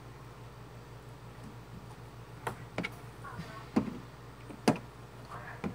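Homemade jiggly slime poked and pressed with fingers, giving about six sharp clicking pops, as air pockets burst, at irregular intervals in the second half.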